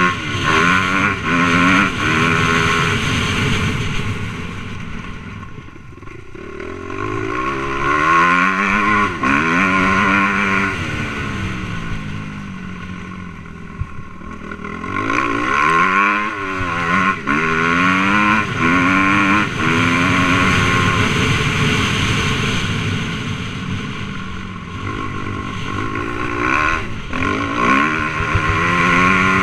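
Suzuki RM-Z250 motocross bike's single-cylinder four-stroke engine revving hard through the gears, its pitch rising and dropping with each shift. It backs off twice into quieter lulls and then pulls hard again.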